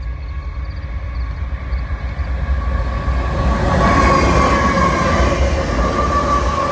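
Freight train rolling by on the rails, growing louder about halfway through. It carries a steady high ringing tone over a low rumble.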